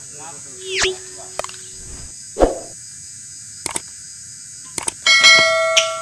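Sound effect of a YouTube subscribe-button animation: a falling swoosh and tone, a thump, two pairs of mouse clicks, then a notification bell ringing out about five seconds in.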